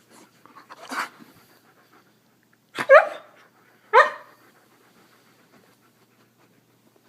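A dog gives two short, sharp pitched yips about a second apart, after a brief breathy huff about a second in.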